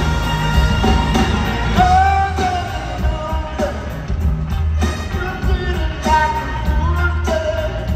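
Live rock band amplified through an arena PA: bass and drums hold a steady groove, and a sliding lead melody comes in about two seconds in.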